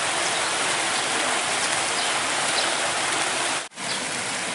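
Steady rushing hiss of river water, with a brief dropout near the end.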